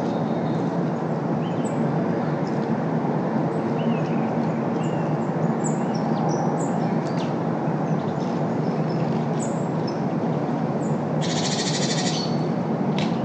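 Steady city traffic noise, loud and unbroken, with short high bird chirps and calls scattered through it. Near the end, a rapid rattling call lasts about a second.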